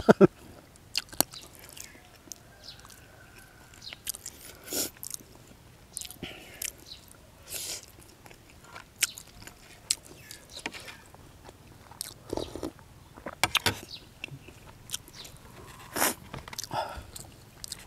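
A person biting and chewing pieces of boiled fish, with irregular wet clicks, smacks and crunches.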